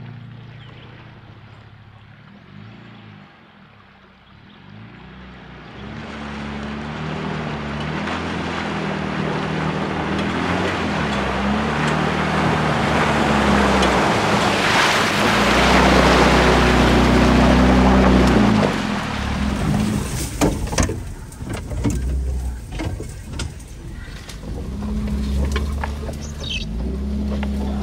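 Jeep Wrangler pushing along an overgrown trail, with branches brushing and scraping along its body and limb risers. The rush of brush builds to a loud peak about halfway through, then breaks into sharp snaps and scrapes of branches near the end. Background music plays underneath.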